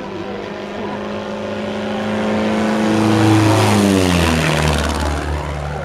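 Aerobatic biplane's piston engine and propeller passing low overhead: the engine note grows louder, peaks about three seconds in, then drops sharply in pitch as the plane goes past.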